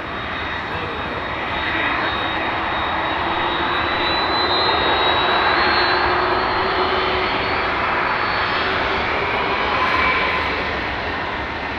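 Airbus A310-304 MRTT's twin General Electric CF6-80C2 turbofans running at low power as the airliner moves along the runway, a steady jet noise with a high whine. The whine rises slightly in pitch and the sound swells to its loudest around the middle, then eases off near the end.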